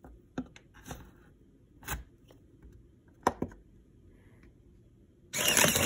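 A few light clicks and taps as the coloured push buttons of a homemade Arduino vending machine are pressed. About five seconds in comes a sudden, much louder stretch of micro servo running and snack-bag crinkling as the machine dispenses.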